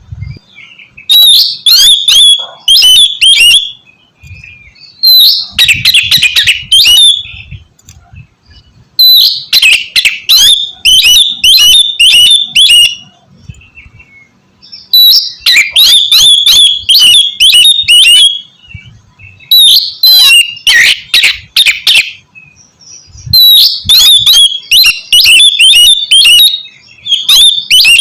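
Oriental magpie-robin (kacer) singing loudly in rapid phrases of sharp, varied whistled notes. The phrases come in bursts of a few seconds, separated by short pauses.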